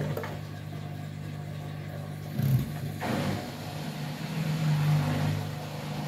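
Candy washing machine on its final spin: the motor hums steadily as the drum speeds up, with a brief knock about two and a half seconds in and a rushing sound that builds from about three seconds in.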